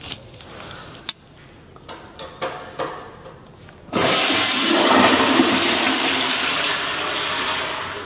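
A few sharp knocks, then a 2019 Gerber Ultra Flush pressure-assist toilet flushing: a loud rushing blast that starts abruptly about halfway through and eases slightly near the end.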